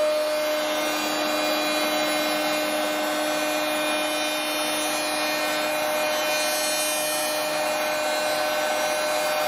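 CNC router spindle running at speed with a steady high whine, its cutter skimming the MDF spoilboard with a steady rushing, rubbing noise underneath.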